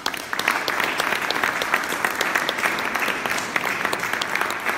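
Audience applauding: many hands clapping densely and steadily in a hall, starting suddenly as the talk ends.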